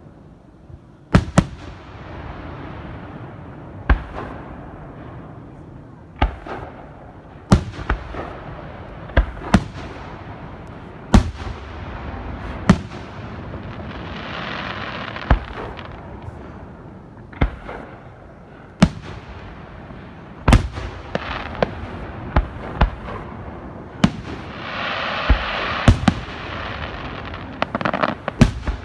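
Aerial firework shells bursting in a display: sharp booms every second or two, each followed by a rumbling echo. Twice, around the middle and again near the end, a few seconds of hissing crackle run under the booms.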